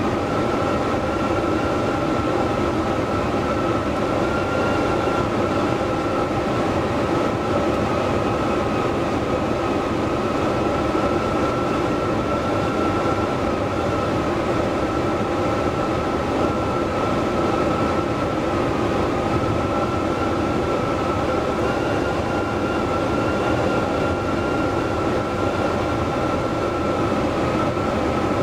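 Long-distance electric train running at speed on high-speed line, heard from inside the driver's cab: a steady rumble of running noise with a steady high whine held over it.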